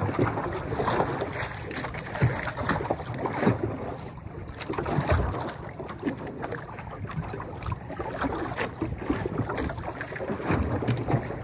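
Wind buffeting the microphone and waves slapping against a small outrigger boat rocking on open water, with scattered knocks and clatter.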